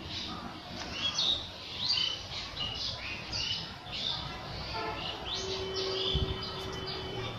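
Small birds chirping, many short, quick calls one after another. A steady tone joins about five seconds in and holds for about two seconds.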